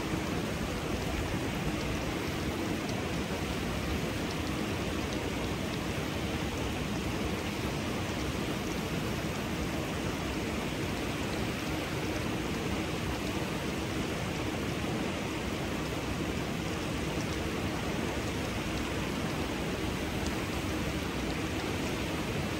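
Steady, even rush of flowing water from a small mountain-stream waterfall.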